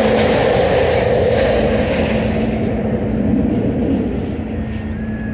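SEPTA subway-surface trolley car running, heard from inside: a steady rumble of wheels on rail with a low hum. The higher rushing part of the noise fades about halfway through.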